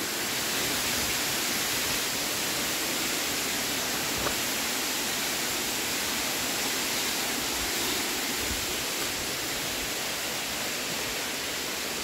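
Steady rushing of a waterfall, an even roar of falling water that holds at one level throughout.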